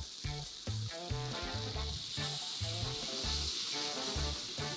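New York steaks sizzling in a hot frying pan, the sizzle growing louder about two seconds in as white wine is poured in to deglaze it. Background music with a steady beat plays underneath.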